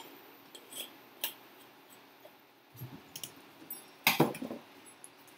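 Kitchen items being handled: a few separate light clicks, then a louder clatter of knocks and rattles about four seconds in as things are put away in a kitchen drawer full of spice containers.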